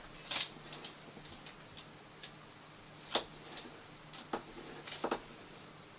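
Pen writing on paper on a small table: soft, irregularly spaced ticks and scratches, about nine in all, some close together.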